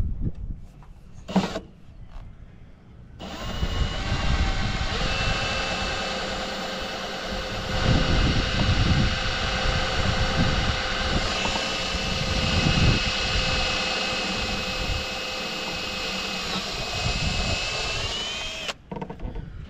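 Cordless drill running at a steady speed for about fifteen seconds, driving a fastener through a PVC splash rail into a boat hull, with a few low knocks partway through. Its pitch rises just before it stops suddenly.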